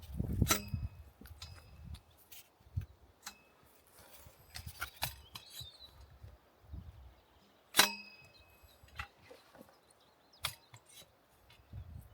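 Sharp metallic clinks of a metal tool striking something hard, each leaving a brief ring. The loudest comes about half a second in and another just before eight seconds, with lighter clicks and soft scuffs between.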